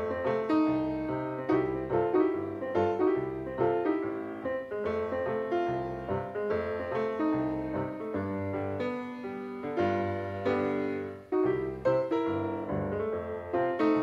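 Background piano music, with notes struck in a steady rhythm over a low bass line.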